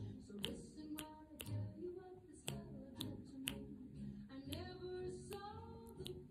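Background music: a song with a sung melody over a finger-snap beat about twice a second.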